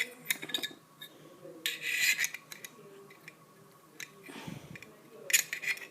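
Small metal clicks and scrapes of a hand tool working the wick into a Zippo lighter's metal insert, in several short bursts.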